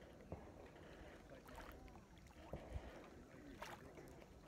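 Near silence: quiet lakeside ambience of small waves lapping at the shore, with a low wind rumble on the microphone and a couple of faint soft knocks.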